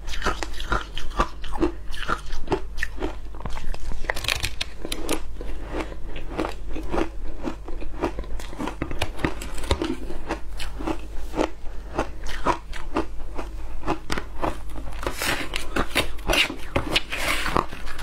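Shaved ice being crunched and chewed close to a clip-on microphone: a dense, rapid run of crisp crunches, busiest near the end.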